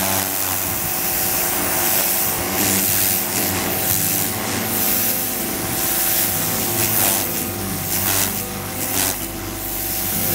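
A 2000 PSI electric pressure washer sprays a jet of water against a wooden landscape timber. The hiss is loud and steady, and swells and eases several times.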